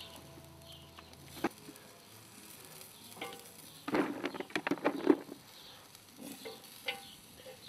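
Beef patties and pork faintly sizzling over charcoal on a Weber kettle grill. About four seconds in comes a quick run of clicks and knocks as a plastic bucket and a utensil are handled at the grill.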